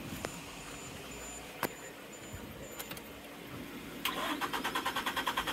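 Starter cranking the 1996 Suzuki Every's small three-cylinder engine from about four seconds in, in fast even pulses, without catching. A few sharp clicks come before it.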